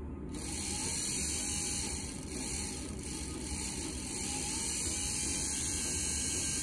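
Smiths heater blower motor from a Series 3 Land Rover, running steadily on a battery bench test and spinning its fan with a continuous hum and airy hiss. It is fed through one of the speed-resistor wires.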